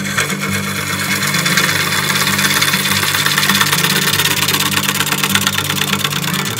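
Gouge cutting a spinning birch blank on a wood lathe: a steady, rough hiss of shavings being peeled off the wood.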